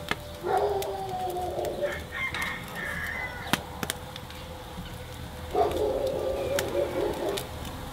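A rooster crowing twice: a long crow starting about half a second in, and a second one near six seconds, with a few sharp clicks between them.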